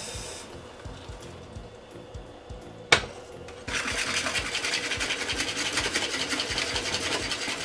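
A single sharp knock about three seconds in, then from about halfway a whisk beating fast against a bowl in a quick, even scratching rhythm: hot milk being whisked into egg yolks, sugar and flour to make custard.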